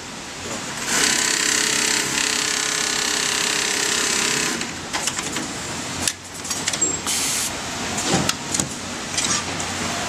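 Jooke automatic pocket-setting sewing machine working. A steady mechanical hum runs for a few seconds, then a quick, irregular clatter of clicks and knocks as its folding frame moves the pocket into place.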